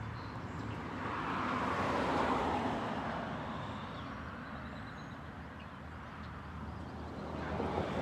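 A road vehicle passing by, its tyre and engine noise swelling over the first couple of seconds and then fading, with another starting to approach near the end.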